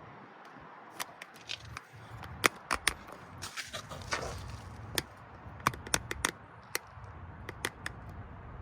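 Irregular sharp metallic clicks and knocks of hand tools working on car suspension parts, about fifteen over several seconds, as the control arm and spindle hardware is put together and the castle nuts are tightened.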